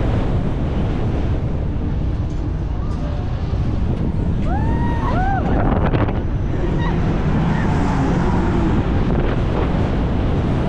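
Wind rushing hard over the microphone of a camera riding a swinging thrill ride high in the air. A couple of brief rising-and-falling cries come through about halfway through.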